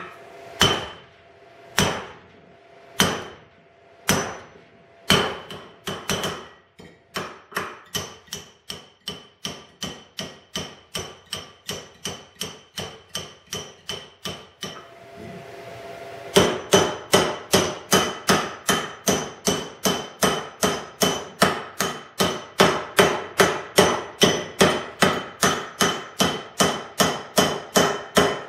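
Hammer striking a drift that bends the flange of a 0.072-inch steel bracket over a forming block clamped in a vise, each blow ringing metallically. Single blows about a second apart give way to a fast run of about three blows a second, a short pause, then a louder fast run.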